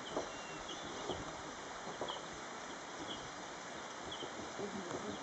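Steady outdoor hiss with a short, high chirp repeating about once a second, and a few faint knocks.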